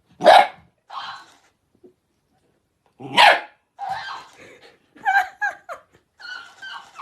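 Dog barking: two loud barks about three seconds apart, with softer, shorter barks and yips in between and near the end.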